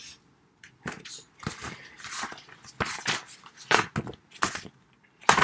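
Handling noises: a series of irregular short knocks and rustles as a small box is handled close to the microphone.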